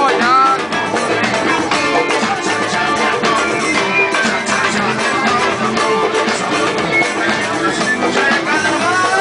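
A live band playing loud, unbroken music with drums.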